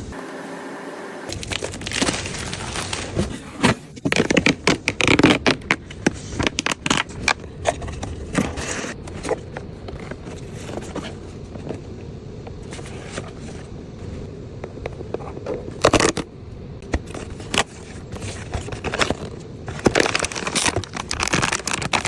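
Blind-box packaging being handled and opened: irregular crinkling, scraping and crackling of the box and wrapper, busiest in a few short spells.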